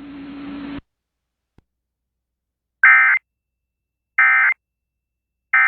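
Three short bursts of NOAA Weather Radio SAME data tones, the end-of-message code that closes an emergency alert broadcast. The bursts are buzzy and evenly spaced, about 1.4 s apart, after a silence. Before them, the broadcast's faint hiss and hum cuts off just under a second in.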